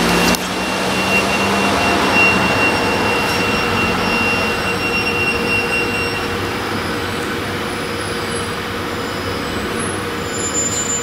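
Ambulance van driving slowly away through a large garage hall and out of its door, its engine running steadily and growing fainter as it moves off.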